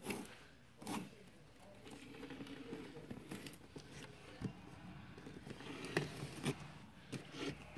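Light, scattered knocks and rubbing from a cardboard box being handled and turned on a wooden table, with phone handling noise.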